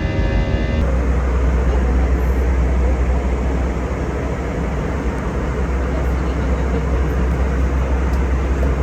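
Steady running noise of a moving vehicle: a constant low rumble under an even hiss. A held stack of steady tones cuts off abruptly under a second in.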